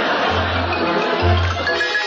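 Radio studio orchestra playing a musical bridge marking a scene change: held chords over a low bass note that sounds in short repeated blocks.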